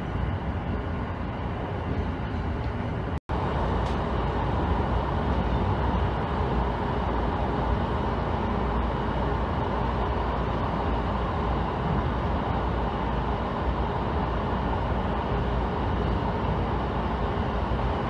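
Cabin noise of a JR E129 series electric train running at speed: a steady rumble of wheels on the rails with running-gear hum. It breaks off for an instant about three seconds in.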